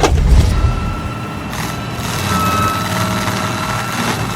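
A heavy machine's engine running steadily with a low rumble, a thin high whine held over it, and a sharp knock right at the start.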